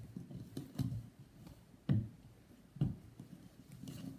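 A utensil stirring a crumbly corn starch and shampoo slime mixture in a plastic mixing bowl, scraping and knocking against the bowl at an irregular pace, with the loudest knocks about two and three seconds in.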